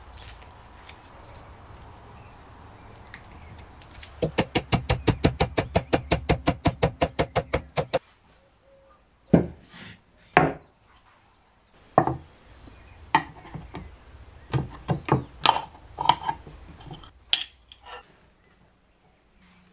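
A fast, even run of sharp knocks, about nine a second, for some four seconds, then scattered knocks and clicks of tools and objects handled and set down on a wooden workbench.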